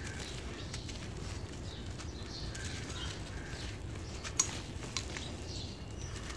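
Dry clumps of a charcoal-and-cement mix crunching as they are crumbled and squeezed between the fingers, with the powder falling onto loose gritty dust. There is one sharper crack about four seconds in.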